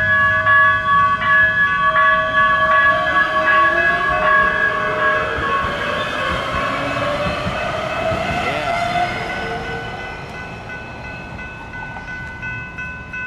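LA Metro light rail train moving past with an electric motor whine that rises in pitch, over a steadily ringing warning bell. The sound fades over the last few seconds.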